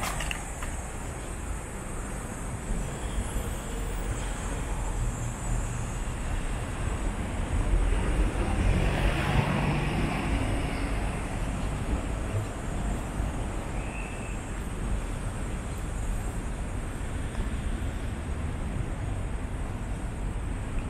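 Road traffic noise, with a car passing close by, growing louder and fading again, about eight to ten seconds in.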